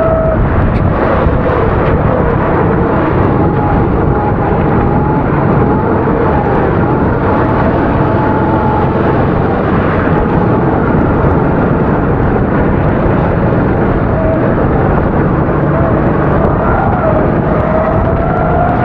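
A 270cc four-stroke kart engine running under race load, its pitch wandering up and down with the throttle, over a steady rushing noise. Near the end the pitch drops briefly, then climbs steadily as the kart accelerates.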